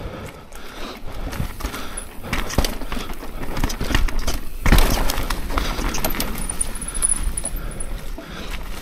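Mountain bike being ridden down a rough dirt trail: tyres crunching over dirt and rocks and the bike rattling with many irregular knocks, over a steady low rumble, with one heavier knock a little before halfway.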